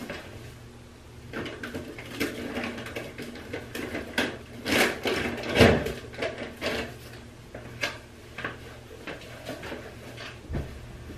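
Rummaging through bathroom storage: small objects clicking and clattering, with the loudest knocks about five seconds in.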